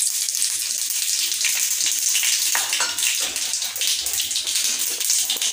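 Mustard seeds and urad dal sizzling steadily in hot oil, with scattered crackles and pops from the seeds.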